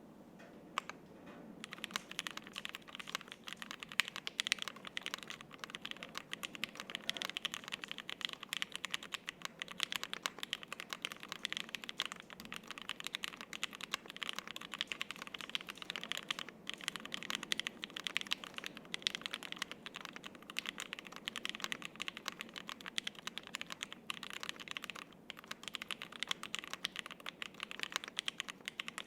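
Fast, continuous typing on a Polaris 60% gasket-mount mechanical keyboard with lubed and filmed Alpaca linear switches on a half FR-4 plate, under GMK double-shot ABS keycaps. The keystrokes begin about a second and a half in and run with only two brief pauses.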